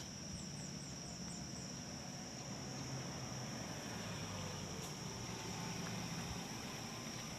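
Insects calling in a steady high drone over a low engine rumble. A quick run of about six faint high chirps comes in the first second or two.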